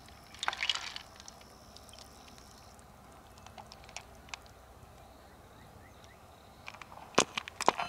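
Sparse light clicks and clinks of small hard objects. A clink about half a second in leaves a faint high ring, a few soft ticks follow, and a quick run of sharp clicks comes near the end.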